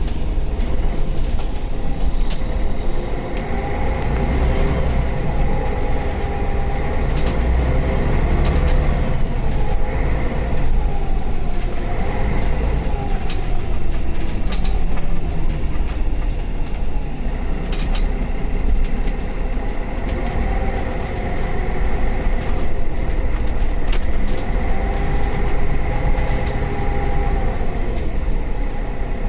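City bus in motion heard from inside: the engine and drivetrain run with a low rumble, their tones rising and falling as the bus speeds up and slows, with scattered sharp rattles and clicks from the cabin.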